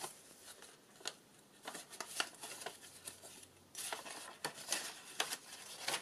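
Paper rustling and light taps as loose cards and paper ephemera are handled and a journal page is turned, with a longer rustle about four seconds in.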